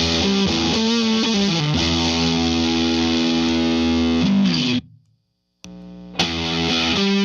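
Electric guitar played through fuzz pedals, heavily distorted, with a long held chord. About five seconds in the sound cuts off abruptly into a brief silence, comes back quieter, then the full fuzzed guitar returns.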